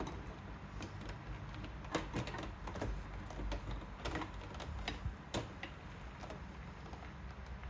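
Irregular light clicks and taps of hand work on a car's plastic interior door trim, a couple of sharper knocks among them.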